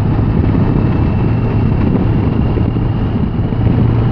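Touring motorcycle riding along a country road: its engine hums steadily under wind and road noise on the bike-mounted camera's microphone, the engine growing a little louder about three and a half seconds in.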